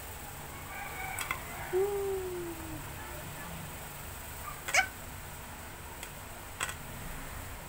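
A cat meows once, a short falling call about two seconds in. Around it come three sharp clicks of wax crayons being picked up and set down on the table, the loudest near the middle.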